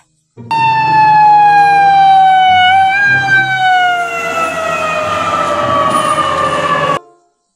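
Ambulance siren sounding one long tone that slowly falls in pitch, with a low engine rumble underneath; it stops abruptly near the end.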